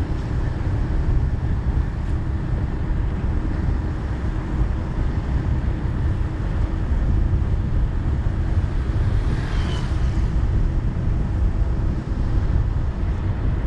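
Wind buffeting a microphone on a moving vehicle: a loud, steady low rumble. About ten seconds in, a short higher sweep passes over it.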